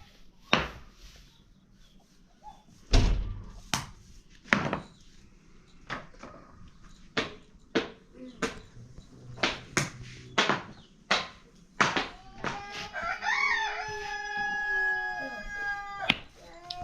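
A series of sharp, irregular knocks, about one a second, the loudest about three seconds in. Near the end a rooster crows once, a long call of about three and a half seconds.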